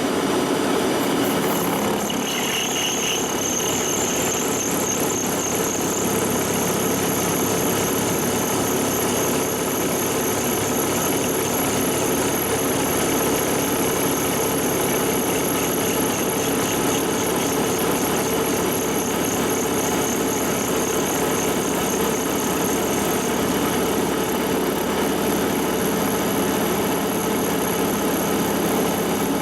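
Monarch engine lathe running while a carbide insert turns a hardened steel tractor pinion shaft in an interrupted cut, a harsh, steady machining noise. About two seconds in, high thin squealing tones join in and hold.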